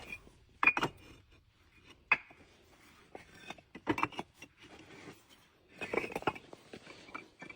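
Bricks clinking and knocking against one another as they are stacked by hand, a few sharp knocks spaced a second or two apart.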